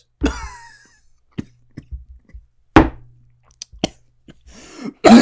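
A man in distress from the burn of ghost pepper hot sauce: a short falling whine just after the start, a few scattered sharp sounds with the loudest about three seconds in, and a rush of breath near the end as he starts to cough.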